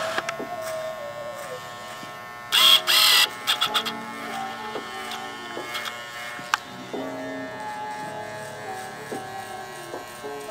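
Electric hair trimmer buzzing steadily as it edges the hairline at the back of the neck, with a few loud short bursts of noise about two and a half seconds in. Background music with changing notes comes in partway through.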